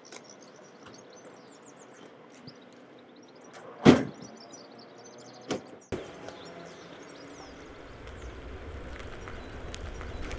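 Car doors of a 1963 VW Beetle shut, one loud slam about four seconds in and a lighter one about a second and a half later. Then the electrically converted Beetle pulls away, a low rumble growing louder toward the end with no engine note.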